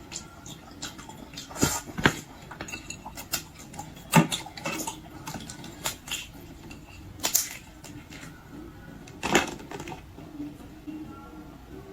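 Someone eating seafood close to the microphone: scattered clicks and clatters of utensils and shells, about five louder ones, with smaller chewing and handling noises between.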